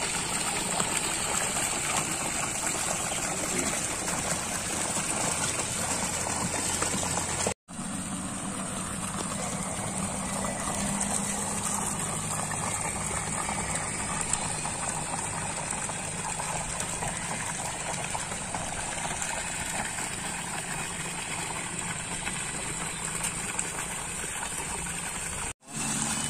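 Strong stream of water from a deep well's 2-horsepower submersible pump gushing steadily out of a galvanized discharge pipe and splashing into a plastic drum, with a steady low hum beneath. The sound cuts out briefly twice.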